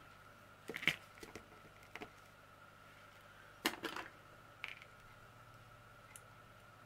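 A few faint, scattered clicks and taps of small plastic diamond-painting drills, tweezers and plastic bags being handled on a tabletop.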